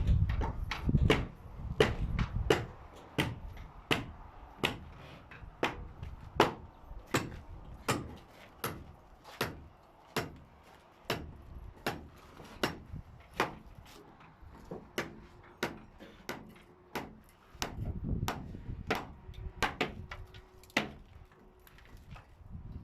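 Hammer blows on timber, struck at a steady pace of about one every two-thirds of a second: nailing up wooden formwork. A low rumble rises under the blows at the start and again near the end.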